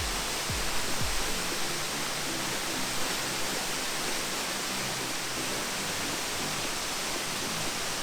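Steady rush of a waterfall, with background music laid over it. The music has a low beat about twice a second in the first second, then held bass notes.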